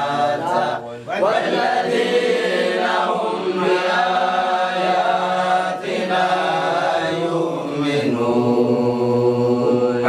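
A man's voice chanting Qur'anic recitation in tajweed style, drawing the syllables out into long, slowly bending melodic notes with short pauses for breath.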